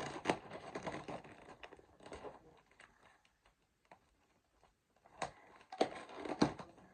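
Carpet packaging being handled, rustling and crinkling, with a few sharp clicks; it goes nearly quiet in the middle, then picks up again near the end.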